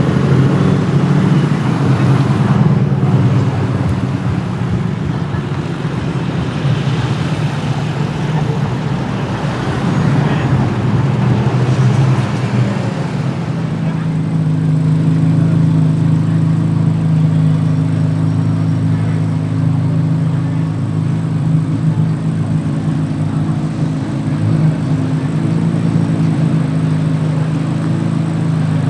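A car engine idling steadily at low revs, with street and traffic noise around it, busier in the first half.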